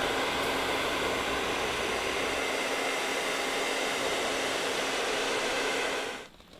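Hair dryer running steadily, a rush of blown air with a steady hum under it, blowing hot air onto a piece of ice on a rock to melt it; it switches off near the end.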